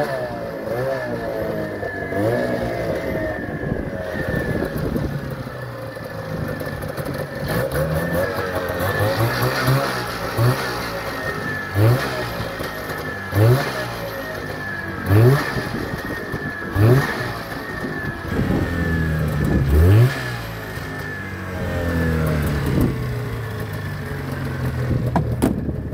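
A 1996 Arctic Cat Panther snowmobile's two-stroke twin engine running, with a string of short throttle blips, each a quick rise in pitch, about every second and a half in the middle stretch. It is running well after its carburettors were cleaned and a stuck needle valve freed. A sharp knock comes near the end.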